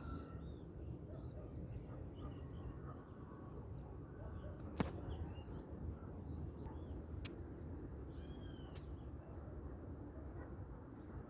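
Many small birds chirping and calling at dawn in short, scattered notes over a steady low background rumble. A sharp click about five seconds in, and a fainter one a couple of seconds later.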